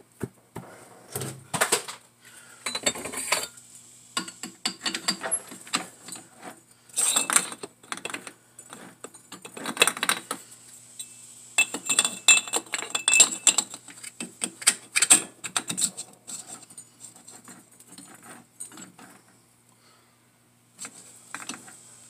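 Irregular metallic clanking and clinking as an aluminium AC receiver-drier tube is pulled from a lathe's three-jaw chuck, turned end for end and clamped back in the chuck jaws. The knocks come in uneven clusters, dying away near the end.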